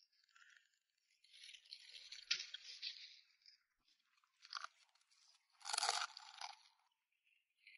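A monkey biting and chewing crunchy food, crunching in irregular bursts, loudest about six seconds in as it takes a big bite.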